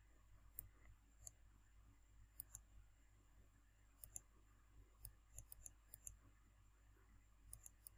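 Faint computer mouse clicks, single and in quick twos and threes, scattered over near silence.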